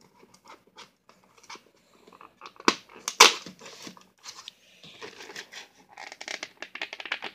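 Fingers tapping and scraping over a cardboard chocolate advent calendar. There are two sharp knocks about three seconds in and a quick run of taps near the end.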